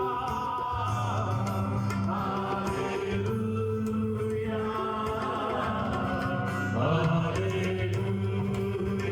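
Church worship music: voices singing a chant in long held notes over an accompaniment.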